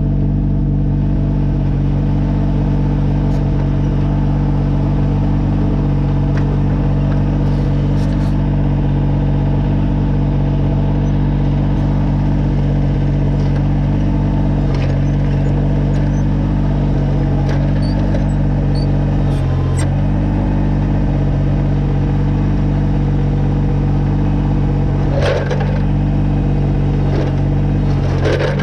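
Kubota BX22 compact tractor's diesel engine running steadily at a constant speed, with a few metallic clanks about two-thirds of the way in and again near the end.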